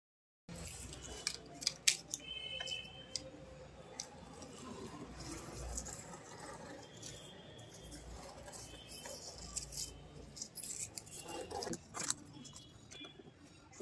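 Marker pen scraping on corrugated cardboard as it is drawn around a cardboard circle, with scattered clicks and rustles of the cardboard being held and shifted.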